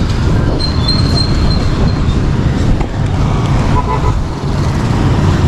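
Road traffic noise heard while riding, a steady low rumble of passing vehicles and wind. A thin high steady tone starts about half a second in and lasts about a second and a half.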